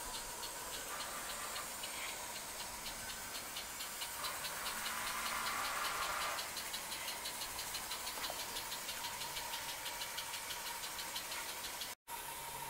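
Garden-railway model steam locomotive running along the track with a steady, quick chuff of about four beats a second over a faint hiss. A louder hiss swells briefly about five seconds in.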